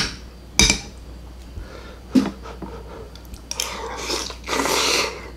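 Metal cutlery clinking twice against a ceramic plate, then, about three and a half seconds in, a long noisy slurp from a spoon of hot beef fat and juices.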